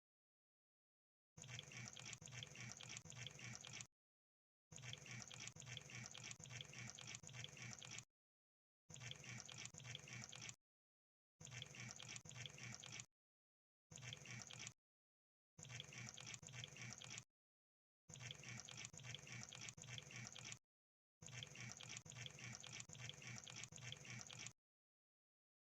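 Crab making fast, wet-sounding crackling clicks. The clicks come in eight bursts of one to three seconds, each cut off by total silence.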